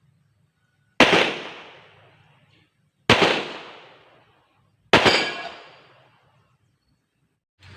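Three 9 mm pistol shots from a Rock Island Armory Tac Ultra FS HC, about two seconds apart, each sharp crack dying away over about a second.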